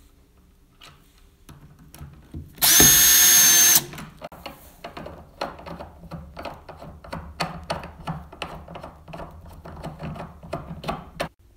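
A small electric hand drill runs in one short burst of about a second, with a steady whine. Then comes a long run of irregular scraping clicks as a tapered wooden furniture leg is screwed by hand into its angled mounting plate.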